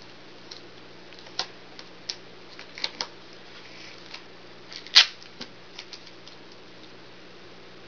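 Duct tape being pulled from the roll and handled: scattered crackles and clicks, with one sharp, louder snap about five seconds in.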